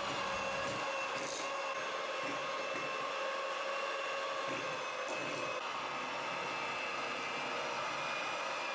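Electric hand mixer running with a steady whine, its beaters whipping softened butter as spoonfuls of chocolate custard are beaten in to make buttercream.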